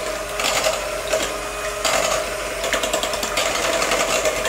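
Electric hand mixer running steadily, its beaters whisking red velvet cake batter in a stainless steel bowl, with a steady motor whir that swells and eases as the beaters move through the batter.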